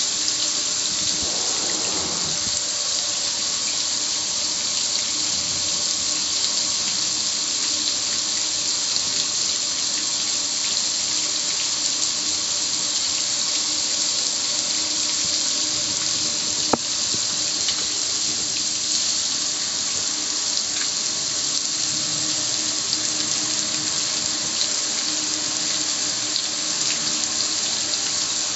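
Garden hose spraying water onto the metal lid and control panel of a gas grill: a steady hiss of spray and splashing water. One sharp click comes about halfway through.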